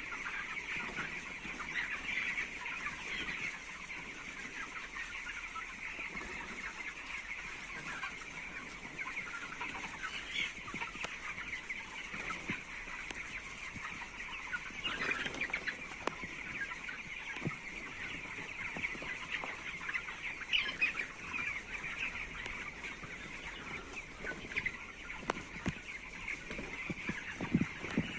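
A large flock of 19-day-old chicks peeping and chirping continuously, many high calls overlapping into one steady chatter.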